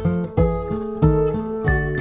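Background music: an acoustic guitar playing plucked notes over a repeating bass note, with no singing.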